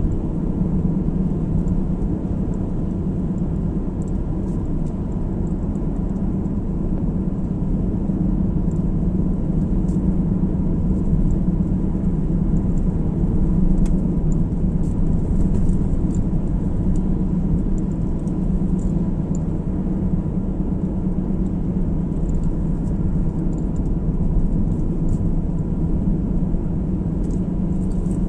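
A car driving at a steady speed, heard from inside the cabin: a constant low rumble of tyres on the road and the engine, with a faint steady whine and occasional faint high ticks.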